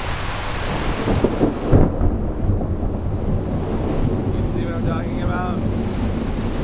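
Thunder from a lightning storm right overhead, with a loud peak about a second and a half in and continuous rumble over steady heavy rain.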